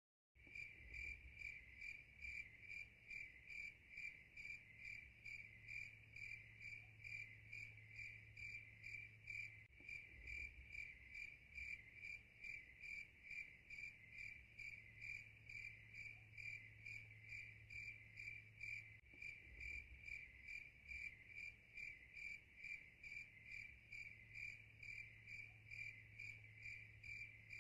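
Crickets chirping faintly in a steady, even pulse, with a low hum beneath.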